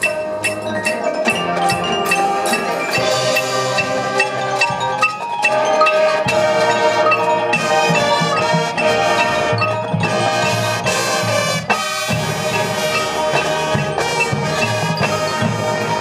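Marching band show music in which the front-ensemble mallet percussion (marimba, xylophone and glockenspiel) is prominent, playing fast runs of struck notes over the sustained band sound, with a brief break about three-quarters of the way through.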